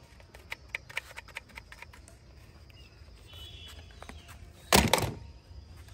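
Plastic toys being handled: a string of light clicks and rattles, then one louder knock about five seconds in.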